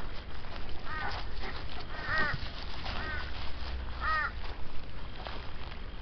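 An animal calling: four short calls, each rising and then falling in pitch, about a second apart.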